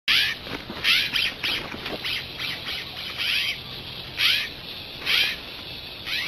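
An animal calling: about ten short, high chirps, each sliding downward in pitch, repeated at uneven intervals.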